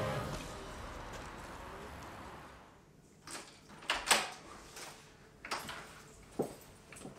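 Front door being unlocked and opened: a series of sharp clicks and knocks from the lock and handle, the loudest about four seconds in. Before that, music fades out.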